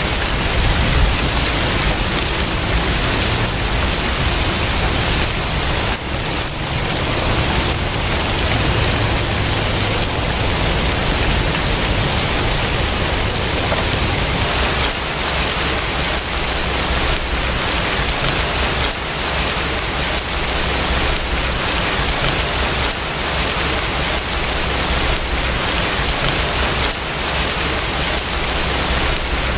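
Rain falling steadily: an even hiss with a low rumble underneath.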